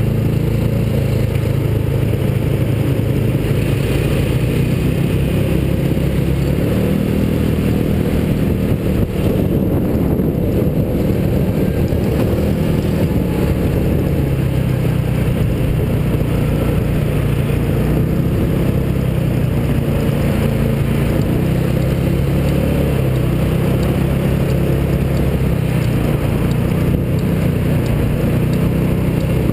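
Small engine of a mini hotrod running loud and close to the mounted camera, its note rising and falling as it speeds up and slows in city traffic.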